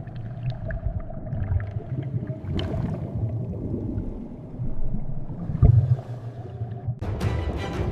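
Underwater ambience: a low rumble of moving water with scattered faint clicks and short squeaks. Music with a beat comes in near the end.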